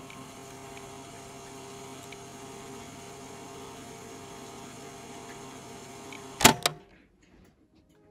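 Electric curtain track motor running with a steady hum as the curtains draw open, then stopping with a loud clunk about six and a half seconds in.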